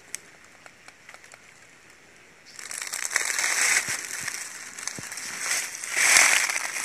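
Crackling, crunching rustle of dry bamboo leaf litter, starting suddenly about two and a half seconds in and swelling twice, after a few faint clicks.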